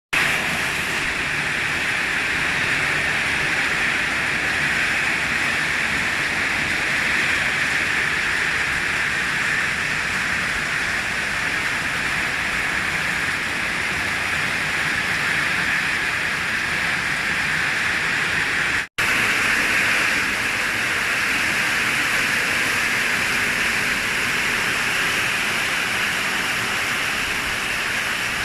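Torrential rain pouring down, a dense steady hiss. It drops out for a split second about two-thirds of the way through.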